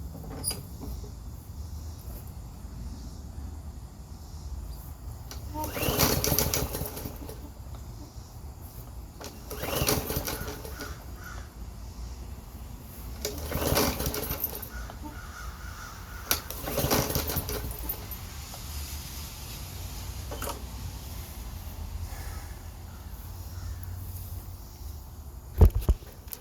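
Gasoline lawn mower being pull-started four times, a few seconds apart. Each yank of the recoil cord spins the engine briefly without it catching. The mower won't start, which the owner suspects is bad fuel. A sharp knock comes near the end.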